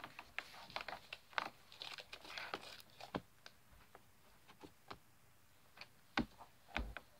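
Something crinkly handled close by: a busy run of rustles and sharp little clicks over the first few seconds, thinning to scattered ticks. Near the end come two dull thumps on a wooden floor.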